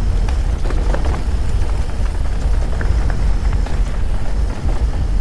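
An electric mountain bike rattling over rough, choppy trail on a descent, with scattered knocks over a steady low rumble of wind on the microphone.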